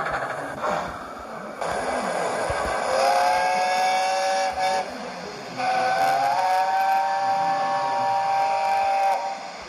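Sound-fitted model LNER steam locomotive giving two blasts of a multi-note chime whistle: a shorter one about three seconds in, then a longer one that bends up slightly at its start. A steady hiss runs behind both.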